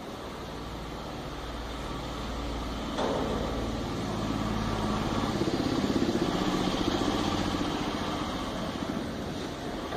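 A motor running with a low rumble. It steps up suddenly about three seconds in, is loudest through the middle with a fast, even rattling pulse, and eases off near the end.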